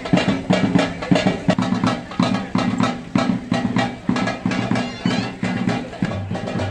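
Music with a quick, steady drum beat, about four strikes a second.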